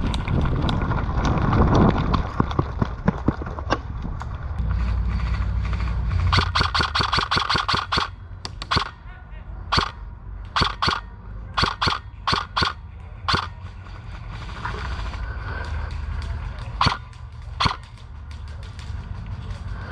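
Airsoft guns firing: a rapid burst about six seconds in, then scattered single shots and short bursts. A loud noisy stretch without shots comes first.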